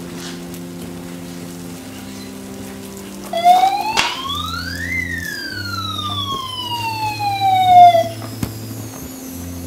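A fire-truck siren wails once, about three seconds in: it rises for about a second and a half, then falls slowly over three seconds, over low held electronic music notes that change pitch.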